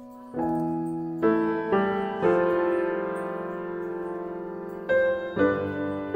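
Background solo piano music: unhurried notes and chords struck one after another and left to ring.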